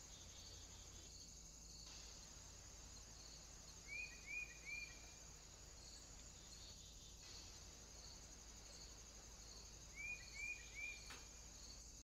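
Faint steady chirring of crickets with a regularly repeating high chirp. Twice, a bird calls three quick arching notes, about four seconds in and again near the end.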